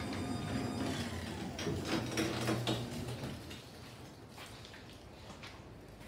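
Garage door opener running and moving the sectional door along its tracks, a steady mechanical hum with scattered clicks, which stops about four seconds in.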